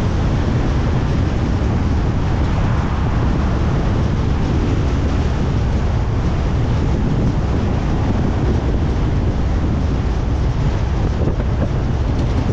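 A car driving along, with wind buffeting the microphone over road noise: a loud, steady low rumble that never lets up.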